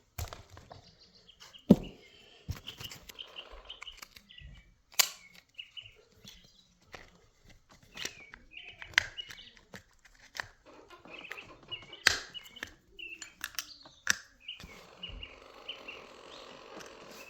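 Sharp clicks and knocks of hand tools and small parts being handled while an RC car's motor is tightened down and its cover fitted, scattered irregularly, with short high chirps in between.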